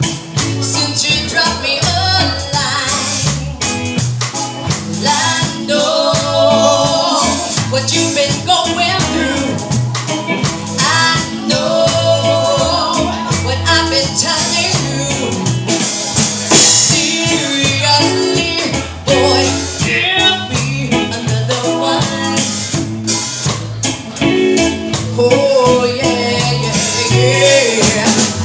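Live reggae band playing: a woman sings lead over electric guitar, bass guitar, keyboard and drum kit, with a steady beat throughout.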